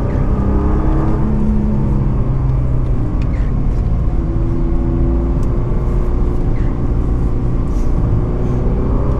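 Nissan GT-R's 3.8-litre twin-turbo V6 running under load at speed, heard from inside the cabin: a loud, even engine and turbo note, jet-engine-like, whose pitch drifts up and down with the throttle.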